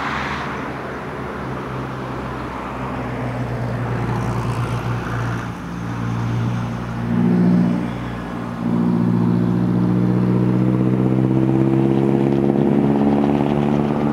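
Diesel engine of a coach bus driving at speed on a highway, a steady engine drone that grows louder a little past halfway as the bus draws closer.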